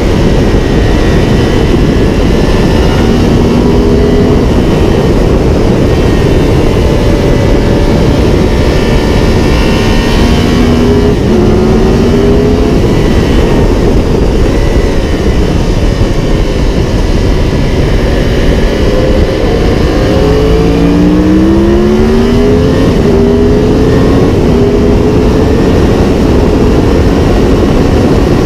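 Heavy wind rush over a nose-mounted camera on a Yamaha R1 sport bike at track speed, with the inline-four engine heard faintly underneath. The engine's note climbs in several pulls as the bike accelerates, most plainly about ten seconds in and again past twenty seconds.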